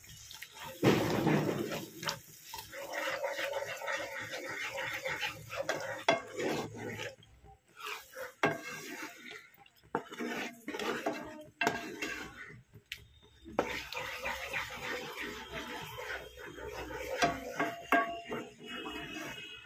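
Wooden spatula stirring and scraping a thick masala in a frying pan, with irregular scrapes and clicks and a few short pauses, the masala frying with yogurt just added.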